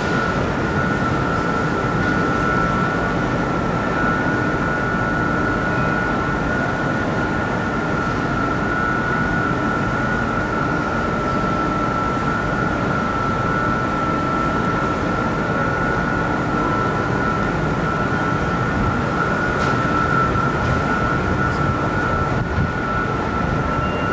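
Lisbon Metro train running, a steady rumble with a continuous high-pitched whine held over it.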